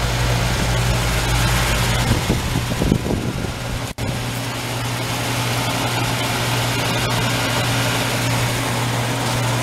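New Goodman 2.5-ton heat pump outdoor unit running in cooling mode: a steady compressor hum under the rush of the condenser fan. The sound drops out for an instant about four seconds in.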